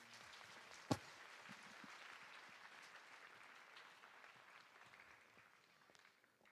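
Faint audience applause that fades away about five seconds in, with one short sharp knock about a second in.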